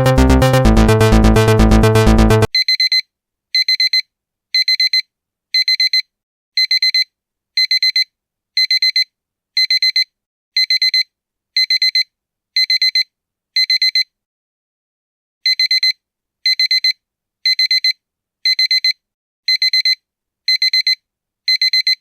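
Electronic music that stops abruptly about two and a half seconds in, followed by a digital alarm-clock beep: quick bursts of high, rapid beeps about once a second, with one short pause partway through.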